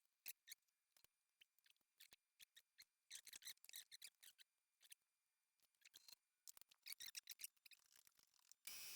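Light, irregular clicks and scratches of metal parts and hand tools being handled at a workbench. Near the end a steady shop noise starts abruptly.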